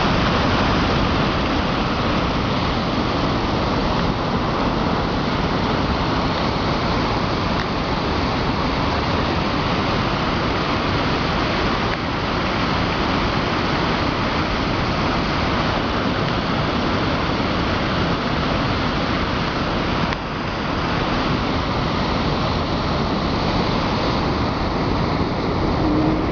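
River water pouring over a waterfall, a loud, steady rushing.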